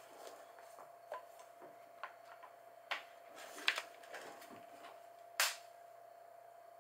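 Scattered rustles and light clicks of bedding and a handheld phone as a person shifts about in bed and lies back, the sharpest rustle about five seconds in. A faint steady hum sits beneath.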